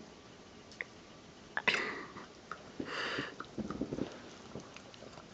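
Jack Russell terrier licking and snuffling ice cream with its head inside a paper carton: quiet wet mouth sounds and sniffs with scattered small clicks and knocks of the carton, the sharpest a little under two seconds in.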